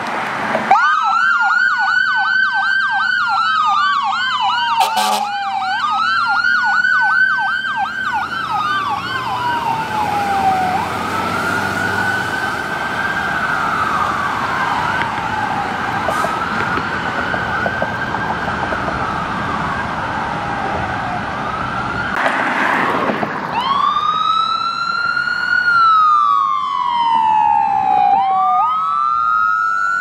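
Electronic emergency sirens, first from a 2019 Pierce Velocity aerial tower fire truck setting off on a call. A slow wail rises and falls every few seconds over a fast, rapidly repeating yelp, and the sound grows fainter after about ten seconds. From about two-thirds of the way in, a louder ambulance siren wails up and down in long sweeps.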